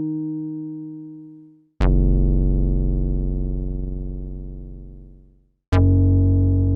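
Yamaha TX81Z FM synthesizer bass notes. A held note fades out, then deep bass notes strike about two seconds in and again near the end, each dying away slowly over about four seconds.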